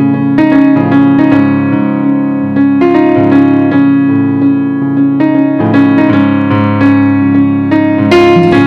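Piano music: a flowing run of struck notes over a held low tone.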